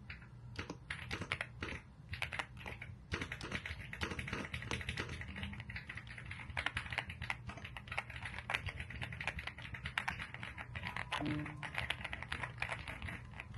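Typing on an Aula wireless mechanical keyboard: a fast, dense run of keystroke clicks with a few short pauses near the start.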